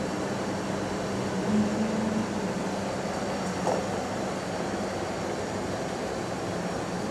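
A steady mechanical hum over an even hiss, the hum briefly rising a little in pitch about one and a half seconds in, with one short faint sound a little past halfway.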